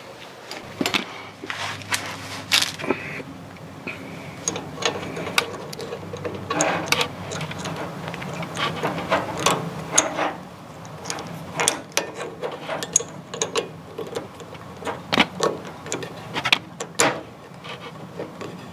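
Irregular metallic clicks and clinks as the handbrake cable's end is handled and fitted to the rear brake's handbrake lever.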